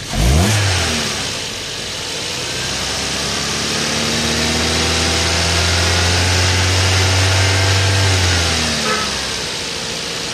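Car engine revved in a quick blip that falls straight back, then the revs climb slowly, hold for several seconds, and drop back to idle near the end.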